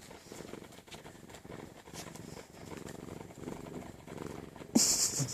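Domestic cat purring, a faint low rumble that pulses in repeated stretches. Near the end comes a short, loud rush of hissy noise.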